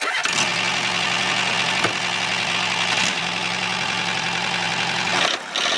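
A motor running steadily, cutting in abruptly at the start, with a brief drop near the end.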